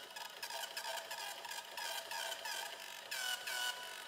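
A printer printing: a run of short, buzzy mechanical passes, each falling slightly in pitch, with ticking clicks between them.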